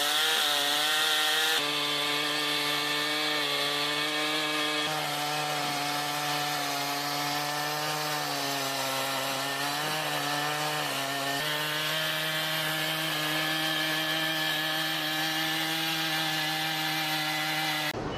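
Chainsaw running at high revs while cutting wood: a steady high engine tone that dips briefly under load and changes abruptly a few times.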